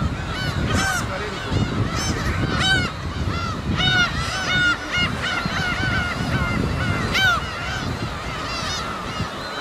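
Gulls calling in a colony: many short, arched calls overlapping one another, with a few louder calls standing out, over a low background rumble.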